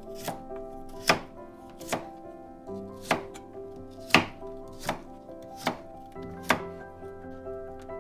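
Knife chopping on a cutting board in single, evenly paced strokes, a little more than one a second, over soft background music.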